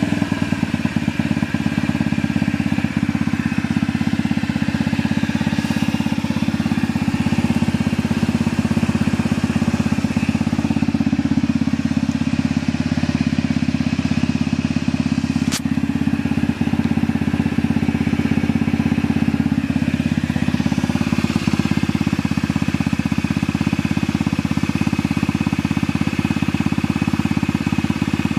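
Honda Zoomer FI scooter's fuel-injected 50 cc single-cylinder four-stroke engine idling steadily, with one sharp click about halfway through. An abnormal noise is reported from this engine.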